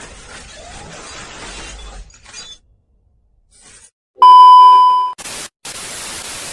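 Glitch-and-TV-test-pattern intro sound effect: about two seconds of crackling digital static, then a loud steady test-tone beep about four seconds in lasting about a second, followed by two bursts of white-noise static hiss.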